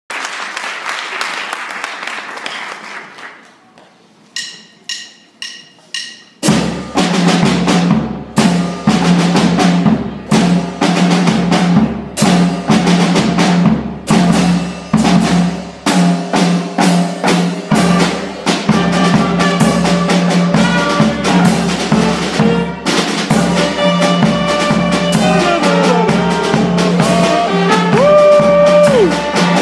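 Youth percussion and wind ensemble of snare drums, bass drum with cymbal, trumpets, saxophones, flutes and clarinets. Four evenly spaced count-in strokes lead into the full band starting together about six seconds in, with dense drumming over steady held notes. From about two-thirds of the way through, a wind melody rises and falls over the drums.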